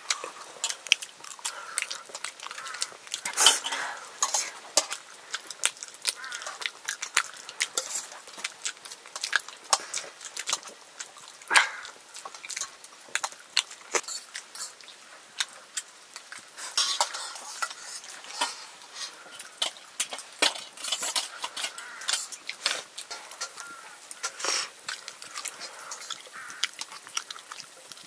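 Cutlery clinking and scraping against dishes: many short, irregular light clinks.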